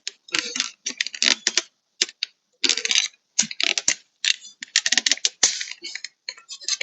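Irregular plastic clicks and rattles from a car door's interior trim part being handled and pushed into place.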